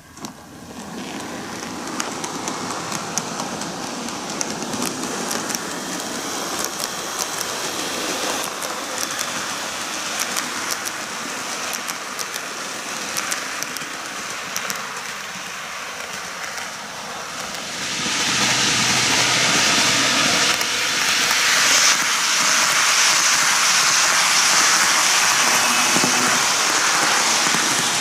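N-gauge model trains, a Kintetsu 23000 series Ise-Shima Liner and an 80000 series Hinotori, running on plastic track. Their wheels and motors make a steady rattling hum with many small clicks, which grows louder about 18 seconds in as a train passes close.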